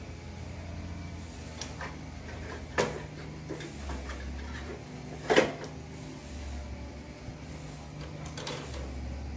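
Metal clinks and knocks as a small reverse gearbox is handled and fitted against a steel buggy frame, with two louder knocks about 3 and 5 seconds in, over a steady low hum.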